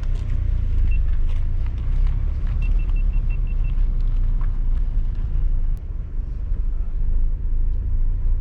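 Car driving on the road, heard from inside the cabin: a steady low engine and road rumble. A single short high beep sounds about a second in, then a quick run of six beeps about three seconds in.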